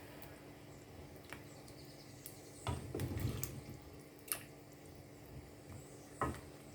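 Quiet kitchen sounds at a pot of stew: a few light clicks and taps of a utensil, with a soft, wet stirring sound about three seconds in.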